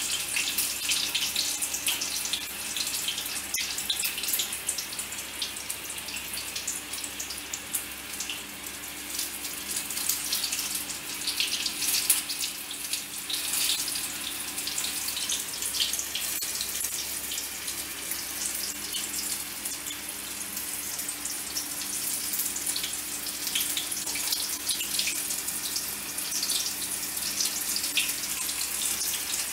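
Battered paneer bajji deep-frying in hot oil: a steady crackling sizzle.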